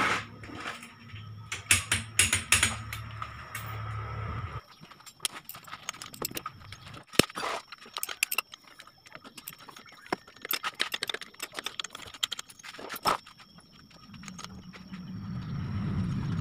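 Scattered metallic clinks and rattles as the timing chain and tools are handled on a Suzuki K14B engine with its timing cover removed. A low steady hum underneath cuts off suddenly about four and a half seconds in, and a low rumble builds near the end.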